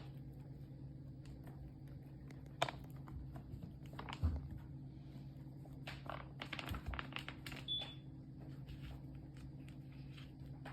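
Kittens gnawing and pawing at a teether stick: scattered small clicks, taps and rustles, busier about six to seven and a half seconds in, over a steady low hum.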